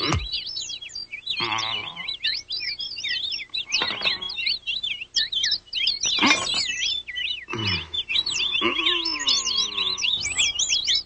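Cartoon soundtrack: fast, high, twittering bird-like chirps that never stop, with sound effects over them. A sharp downward swoop comes right at the start, then several short pitched effects, and a longer sliding, wavering tone a little past the middle.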